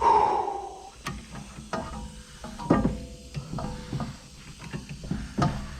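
A stuck rear brake caliper piston on an Audi A3 mk2 being screwed back into the caliper. A loud metal squeal at the start eases off over about a second, then come clicks and creaks as it is turned and pressed in.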